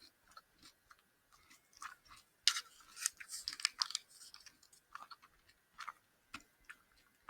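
A person chewing a gummy candy fry: soft, sticky mouth clicks and smacks, busiest between about two and a half and four seconds in.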